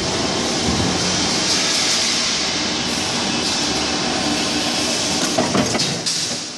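Steel strip cut-to-length line running, feeding flat strip through its roller straighteners, with a continuous mechanical rattle and hum. A couple of sharp metal clanks come near the end.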